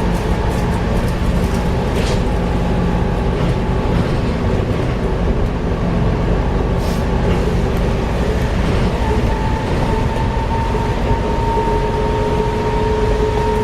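Volvo B7TL double-decker bus running, with the engine and drivetrain noise steady. A couple of brief clicks come about 2 and 7 seconds in, and a whine builds and rises slightly in pitch from about two-thirds of the way through. These noises are typical of what the uploader puts down to a bad differential.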